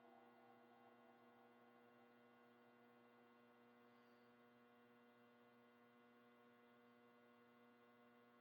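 Near silence: a faint, steady hum made of several held tones, with no hits.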